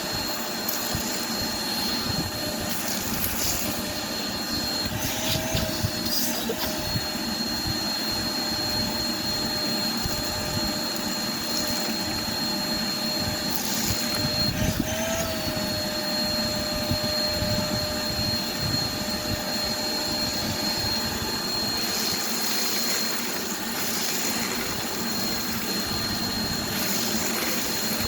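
Shop vacuum running steadily with a high motor whine while sucking broken glass off the ground. There are occasional short clattering noises as pieces go up the hose, and the whine briefly shifts in pitch twice.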